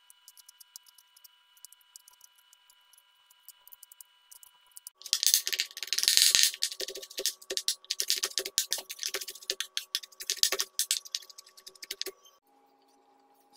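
Kitchen knife chopping fresh coconut pieces on a bamboo cutting board. The chopping starts about five seconds in as rapid, sharp, loud strokes and stops near the end. Before it there are only faint clicks of the pieces being handled. Soft background music with held notes runs underneath.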